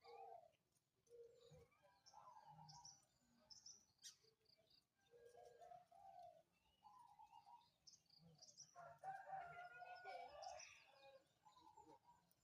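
Songbirds chirping and calling: a string of short whistled notes and chatters at varying pitches, busiest about nine to eleven seconds in.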